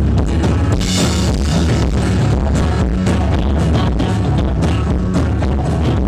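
Live rock band playing loud, with drum kit and electric and acoustic guitars, and a cymbal crash about a second in.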